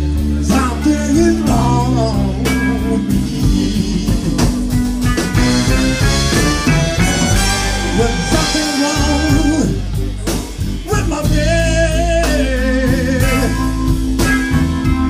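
A blues-soul band playing with electric guitar, bass, drums and keyboard, with no sung words. A lead line bends and wavers in pitch over a steady bass and drum beat, most prominently in the second half.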